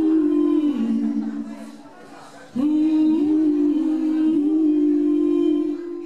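Two women singing long held notes in two-part harmony, sliding up into each note. They drop away about two seconds in and come back in sharply about half a second later.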